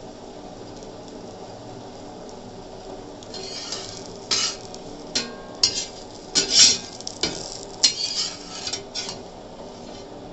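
Metal spatula scraping across a dosa pan as it is worked under a slice of French toast frying in butter: a run of short, sharp scrapes starting about three seconds in, over a faint steady sizzle.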